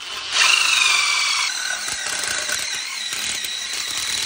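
Cordless drill spinning a small cutter inside an ABS drain pipe, squealing as it cuts the plastic down to length. It starts abruptly, and its pitch falls over the first second, then holds steady.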